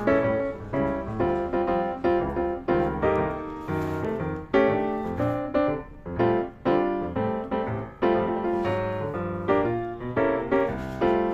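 Background piano music: a melody of separate struck notes, each fading after it sounds.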